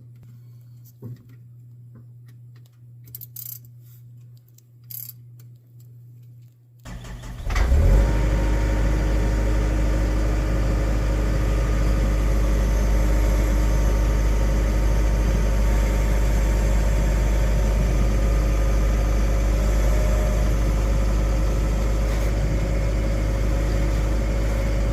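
A few quiet clicks over a low steady hum. About seven seconds in, the Intimidator GC1k UTV's gasoline engine starts and then idles steadily.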